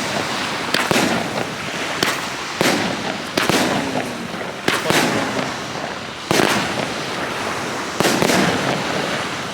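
Consumer fireworks going off: a series of about seven sharp bangs roughly a second apart, each trailing off before the next.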